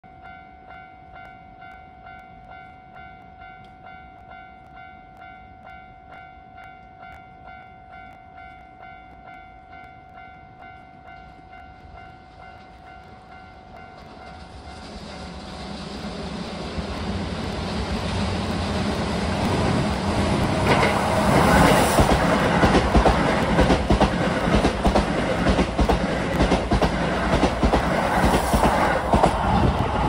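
Japanese level-crossing warning bell ringing in a steady repeating pulse, then a Keisei 3000-series electric train approaching from about halfway through, growing louder and passing close by with rapid clacking of wheels over rail joints.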